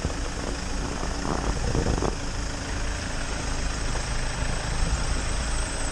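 A 4x4's engine idling steadily, with faint voices in the background about a second and a half in.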